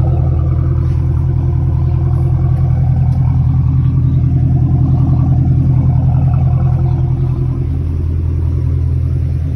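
2021 Camaro SS's 6.2-litre V8 idling steadily through an MBRP cat-back exhaust with quad tips, a deep, even rumble. It gets a little quieter near the end.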